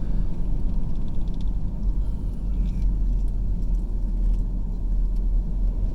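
Car driving, a steady low rumble of engine and tyre noise.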